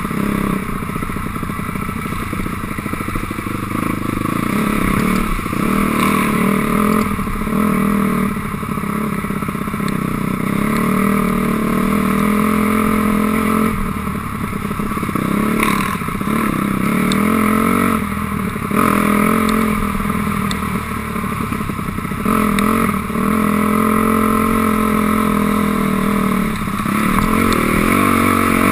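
2006 Honda CRF250R's single-cylinder four-stroke engine running under load, its pitch rising and falling over and over as the throttle is opened and closed on the trail. Scattered sharp clicks are heard over the engine.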